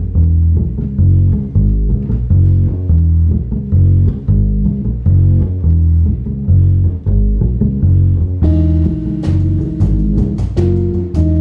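Jazz quartet playing live: a plucked upright double bass line with light guitar. About eight and a half seconds in, the drum kit comes in with cymbal strikes, and held melody notes enter over the bass.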